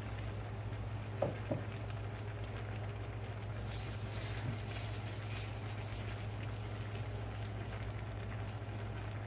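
Gas stove burner running under a pot of soup: a soft steady hiss over a steady low hum, with a couple of faint clicks a little over a second in.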